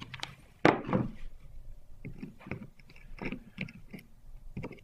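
A metal hand tool scraping and picking at the copper foil along the edge of a stained glass box, in a series of short, irregular strokes, the loudest about two-thirds of a second in. The foil is being cleaned off the edge where the old hinge was torn away.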